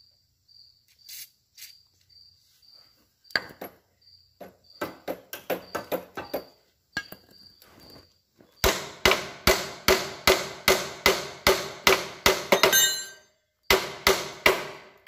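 Hammer striking the steel rear shock absorber mount of an old Yamaha motorcycle to free a stuck shock. Light taps begin about three seconds in and build to a fast run of loud, ringing metal blows, about three a second, with a brief pause near the end.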